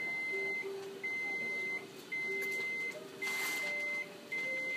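An electronic beeper sounding a steady high tone in regular beeps, each a little under a second long with short gaps, about five in a row.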